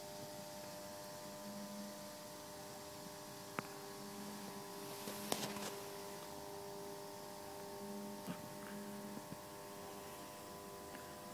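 Faint, steady electrical hum made of several held tones, with a lower tone that comes and goes and a few soft clicks about a third and halfway through.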